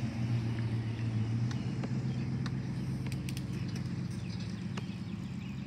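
Pickup truck engine running as it drives past on the street, a steady low hum that slowly fades away. A few faint clicks come through over it.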